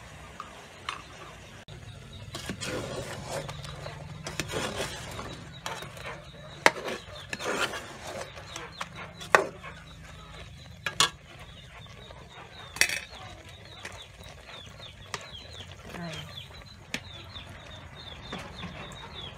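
A metal spoon stirring and scraping through braised fish and boiled eggs in an aluminium pot, with several sharp clinks of the spoon against the pot in the middle of the stretch.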